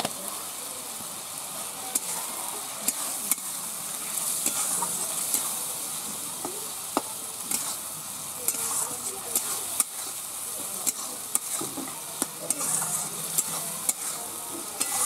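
Masala paste frying and sizzling in oil in a metal kadai while a flat metal spatula stirs it, with irregular sharp clicks and scrapes of the spatula against the pan.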